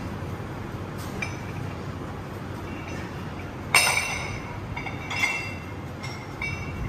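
Iron gym weight plates clinking and clanking as they are set down, four separate metallic strikes with a short ring, the loudest about four seconds in.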